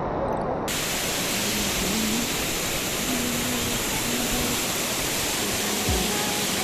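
Steady roar of a waterfall, a dense hiss of falling water that cuts in abruptly under a second in.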